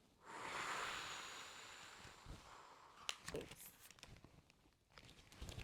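A child's long, deep breath, about two seconds of breathy air noise, acting out taking a deep breath. A few faint clicks and rustles follow about three seconds in.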